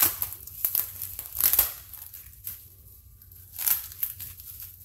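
Bubble wrap being crinkled and handled, with scotch tape pulled off it, in irregular crackly bursts about once a second and a quieter lull midway.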